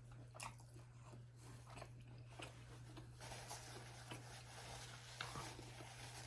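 Faint close-up chewing: scattered soft mouth clicks and a stretch of chewing noise about midway, over a low steady hum.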